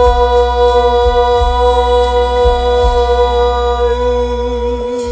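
A singer holds one long final note at a steady pitch over the backing track, with a slight wavering near the end, closing the song.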